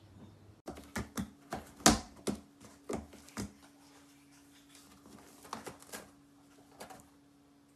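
A cat biting and mouthing at the edge of a bag of granules: a quick run of sharp crackles and crunches, the loudest about two seconds in, then sparser, softer ones later, over a faint steady hum.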